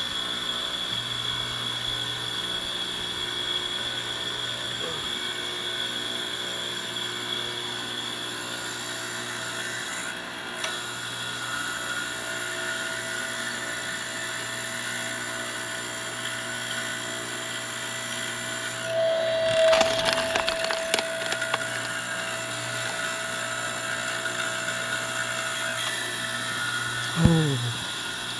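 Automatic firewood processor running with a steady machine hum. About two-thirds of the way through, wood cracks and splinters in a burst of snaps. Near the end comes a sharp knock with a quick falling tone.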